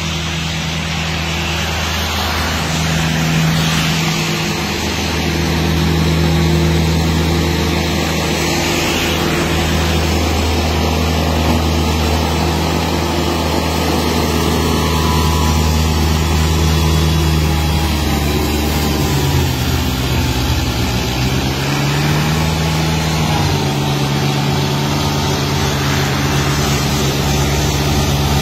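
Massey Ferguson GC1700 sub-compact tractor's three-cylinder diesel running at working speed, driving its front-mounted snow blower, with a steady rush of snow being thrown. About two-thirds of the way through, the engine note sags and then comes back up.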